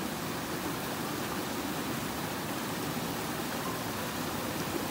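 Steady rush of a large waterfall and the white-water rapids below it, water pouring over and between rocks.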